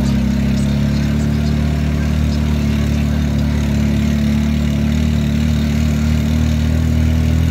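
Auto-rickshaw engine running at steady, low revs with an even hum.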